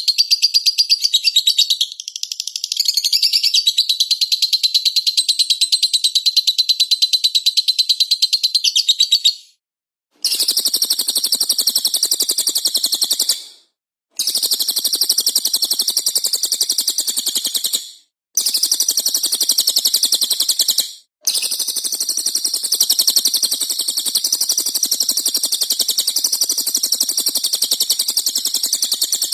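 Songbird masteran (tutor recording for cage birds): very fast, dense chirping without a break, then after a short silence more rapid repeated calls, cut three more times by brief silent gaps.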